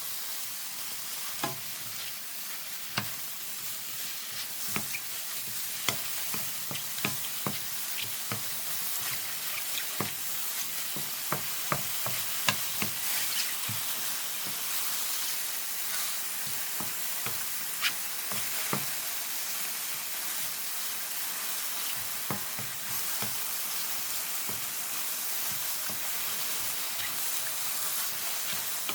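Strips of king oyster and 황제 mushrooms sizzling in a hot pan, with a steady hiss, while a utensil stirs them and clicks against the pan at irregular moments. They are being stir-fried over high heat to drive off their moisture.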